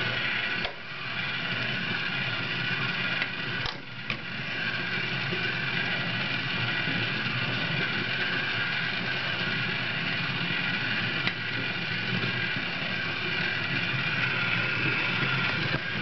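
Steady mechanical whirring, like a small motor running, with a couple of brief clicks in the first few seconds.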